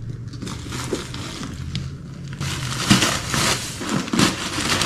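Crinkling and rustling as a new handbag and its packaging are handled, growing louder about halfway through.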